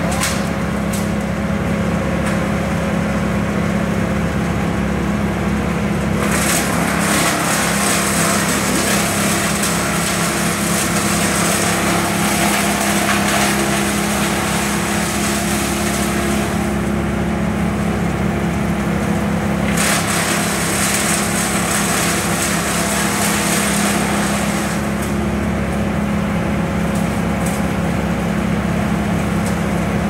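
Bucket truck's engine running steadily to power the aerial lift. A louder hissing rush sits over it twice: for about ten seconds starting some six seconds in, and again for a few seconds later on.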